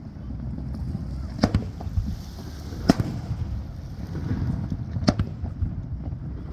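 Fireworks shells bursting in the distance: three sharp bangs about a second and a half apart, then a longer gap, over a steady low rumble.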